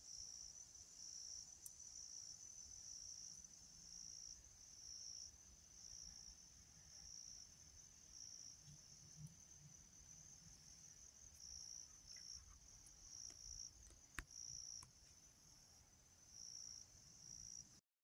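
Faint woodland ambience: insects trilling high and steadily, pulsing on and off about once a second, over a faint low rumble of distant urban noise. One faint click about fourteen seconds in.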